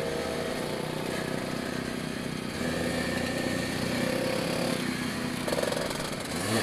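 Vespa scooter engine running steadily while riding, with other scooters of the group nearby; the engine gets louder about two and a half seconds in.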